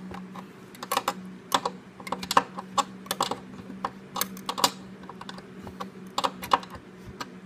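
Small, irregular metal clicks and taps, about two or three a second, as a thin half-inch wrench tightens the nut of a mandolin pickup's output jack against the metal tailpiece, with a pin through the jack holding it still.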